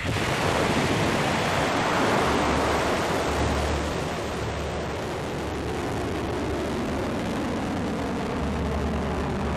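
Rocket motor of a Hwasong-15 intercontinental ballistic missile firing at liftoff: a loud, steady rush of noise that starts suddenly. It is strongest over the first few seconds, then eases slightly as the missile climbs away.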